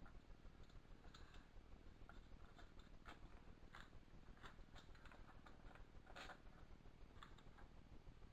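Near silence with faint, irregular clicks and light taps of small metal hardware being handled: nuts and washers being fitted by hand onto the wheel bolts of a mechanic's creeper.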